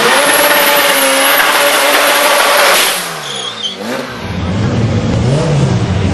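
Drag-racing Ford Focus engine held at high revs under a loud rushing noise for about three seconds. The sound then drops, and the engine runs on at lower revs with its pitch rising and falling in short revs.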